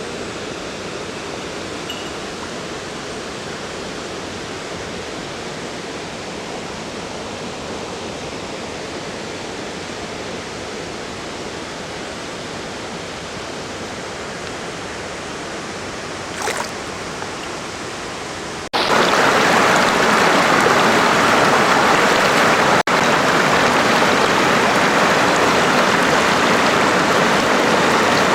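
River water rushing over rocks, a steady noise that jumps suddenly louder about two-thirds of the way through.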